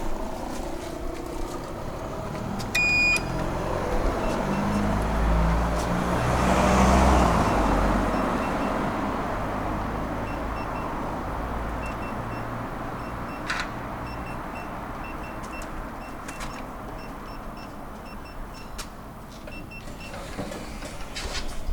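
Otis hydraulic elevator: a short electronic beep about three seconds in, then a low hum and rumble of the car in travel. The noise builds to a peak around seven seconds and fades away slowly, with a few faint clicks near the end.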